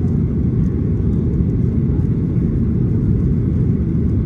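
Boeing 737-800's CFM56 jet engines and airflow heard as a loud, steady low rumble with no distinct tones, typical of the takeoff and climb.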